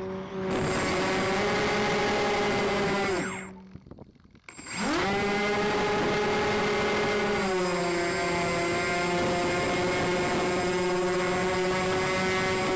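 Motors of a radio-controlled model C-124 Globemaster, heard from on board, running with a steady whine over rushing air. A few seconds in the throttle is cut: the pitch sinks away to near quiet, then the motors spool straight back up within about a second. Halfway through they settle at a slightly lower pitch.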